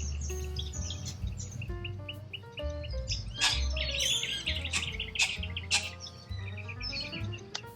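Wild corella cockatoos calling at a feeder, harsh screeches and chattering that come thickest in the middle, over background music with a steady bass line.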